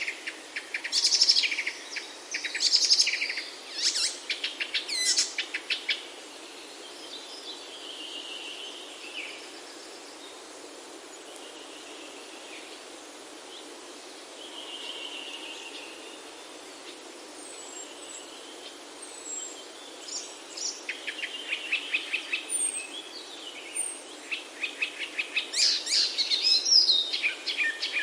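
Songbirds singing: rapid trilled phrases, loudest in the first five seconds and again from about twenty seconds in, with softer drawn-out calls between, over a steady low background hiss.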